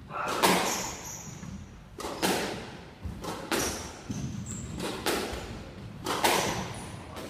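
Squash rally: the ball smacks off rackets, walls and floor about a dozen times, each hit echoing around the court, with sneakers squeaking on the wooden floor between shots.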